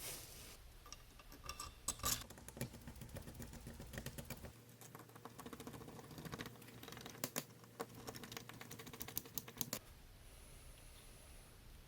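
Rapid, irregular clicking and rattling of small metal deadbolt lock hardware being handled and fitted into a door, thinning out near the end.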